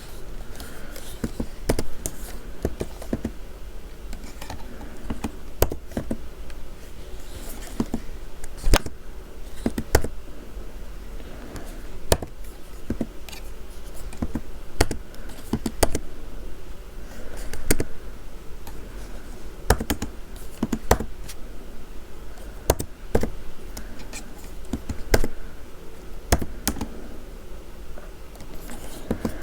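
Computer keyboard being typed on: irregular key clicks and taps, with now and then a louder keystroke.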